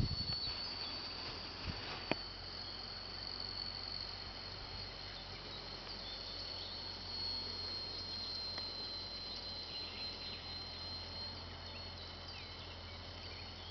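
Radio-controlled model biplane's motor heard high overhead as a thin, steady high whine that drifts slightly in pitch as the plane moves, over a faint low wind rumble. A knock at the start and a sharp click about two seconds in.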